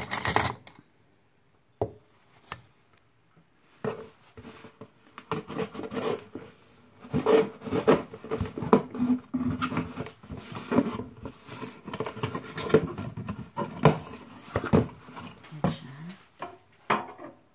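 Cardboard shipping box being opened by hand: the packing tape is cut and pulled and the flaps are worked open, giving a run of irregular scraping, rubbing and tearing of cardboard from about four seconds in, after a few isolated clicks and knocks.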